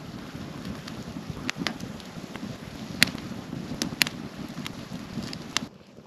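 Small campfire of dry twigs and sticks burning in a stone fire ring, crackling with irregular sharp pops, the two loudest about three and four seconds in, over a low steady rushing noise. It cuts off abruptly near the end.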